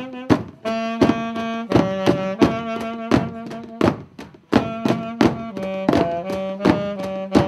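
Folk drum band playing: a large rope-tensioned bass drum and a snare drum beat a steady rhythm of about two to three strokes a second, under a melody that moves above a held low drone.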